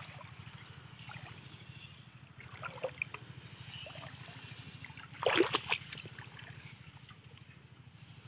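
Shallow paddy water splashing and sloshing as someone wades and handles things in it, with a louder splash about five seconds in. A steady low hum runs underneath.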